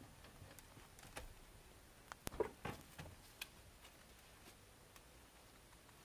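A young rabbit chewing fresh leafy greens: faint, irregular crunching clicks, with a quick run of them a little past two seconds in.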